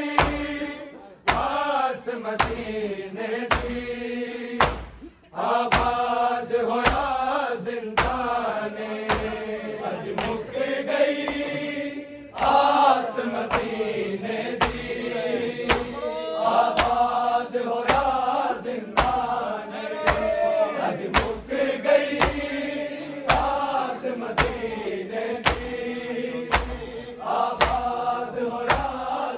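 Men's voices reciting a noha together as a slow, mournful chant, with a lead voice and the group answering. A steady beat of sharp slaps runs under it, about three every two seconds: hands striking chests in matam, keeping time with the lament.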